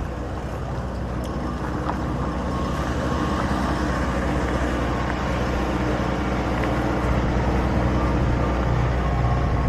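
An engine running steadily: a low, even-pitched hum that gets a little louder in the second half, over a haze of outdoor noise.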